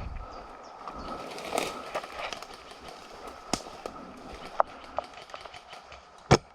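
Scattered sharp pops of airsoft guns firing single shots, several spaced irregularly, the loudest near the end.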